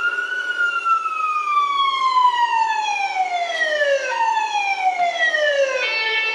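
Siren wail, most likely a recording played through a laptop speaker: a long tone sliding slowly downward for about four seconds, then a second, shorter downward slide.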